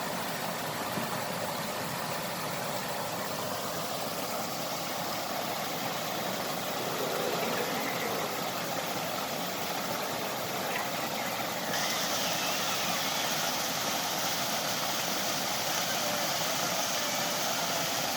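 Off-road vehicle engine running steadily under a dense rushing noise. The high hiss gets stronger abruptly about twelve seconds in.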